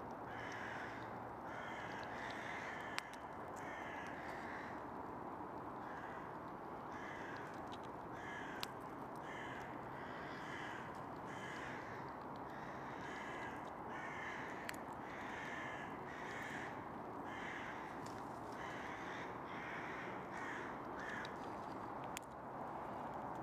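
Short bird calls repeating about once a second over a steady background hiss, with a few sharp clicks from a Eurasian red squirrel cracking pine nuts.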